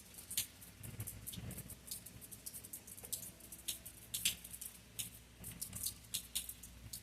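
Raindrops tapping on a hard surface close to the microphone: irregular sharp ticks, several a second, over a faint low hum.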